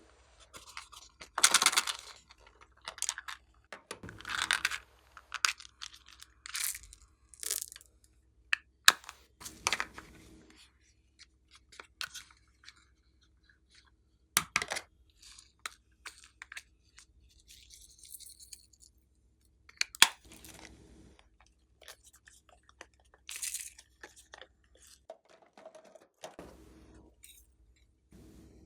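Glossy slime being squished, stretched and pressed by hand, giving irregular sticky pops, crackles and wet tearing sounds.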